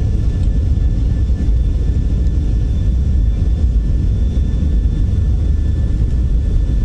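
Jet engines of a Boeing 737-800 (CFM56-7B turbofans) running: a steady low rumble with a faint, even high whine over it.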